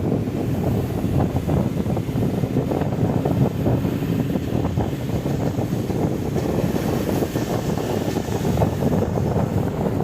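Bus in motion: a steady low rumble of engine and road noise with frequent small knocks and rattles, and wind buffeting the microphone.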